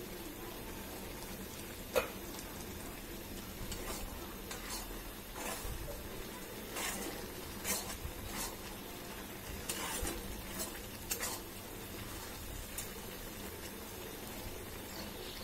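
Spatula stirring and scraping vegetables around a cast-iron kadai in irregular strokes, over a steady sizzle from the hot pan. A single sharp knock about two seconds in.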